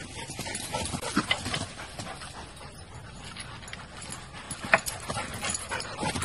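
A dog scrabbling and climbing at a wooden stile, its paws knocking on the wood in a run of short, sharp knocks; the loudest is a little under five seconds in.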